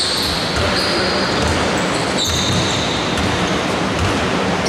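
Basketball being dribbled on a wooden indoor court, bouncing about twice a second, in a large echoing hall. A few short high squeaks, likely sneakers on the floor, sound over it.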